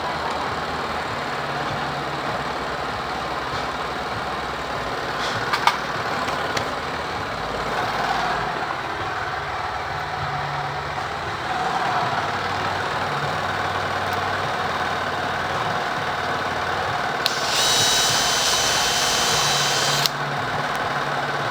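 Steady mechanical background noise with a few sharp clicks of tools, and a high steady whine for about three seconds near the end.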